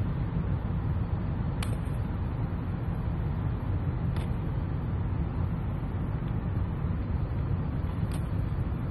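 Car engine idling, a steady low rumble heard from inside the cabin, with a few faint clicks about two, four and eight seconds in.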